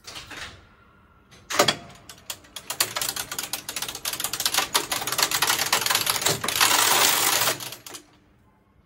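VAMBAC motorised rotary resistance switch of a 1952 Blackpool tram stepping round. As its magnets sweep the ring, the piano-key contact arms snap in one after another, making a rapid clatter of clicks like a typewriter. There is a single click first and a sharp snap about a second and a half in, then about five seconds of dense clicking that dies away near the end.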